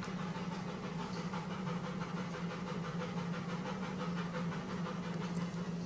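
Steady low hum of background noise with faint scratching, as a marking tool is traced around a plastic disc on a piece of leather.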